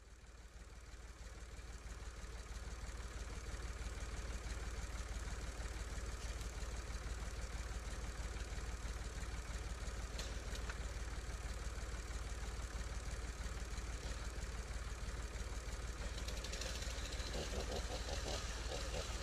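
Tractor engine idling steadily with a low rumble, fading up over the first few seconds; near the end a rougher clattering joins in.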